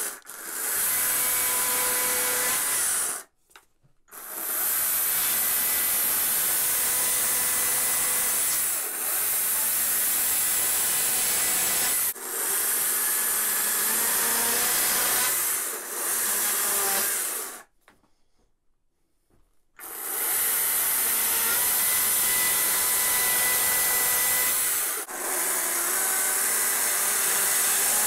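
Stihl MSA battery chainsaw with a dime-tip carving bar cutting shallow notches into scrap wood, its motor running with a steady whine. The saw stops completely twice, about three seconds in and for about two seconds just past the middle, and eases off briefly a few other times between cuts.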